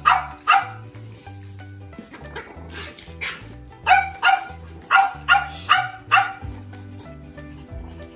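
French bulldog puppies barking and yipping as they play-fight, about ten short high barks in quick bunches, most of them between four and six seconds in.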